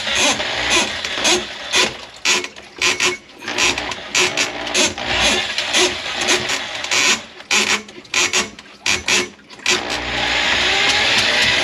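Electric drain snake run in short, irregular bursts of rattling, with brief pauses between them, while clearing a clogged kitchen sink drain.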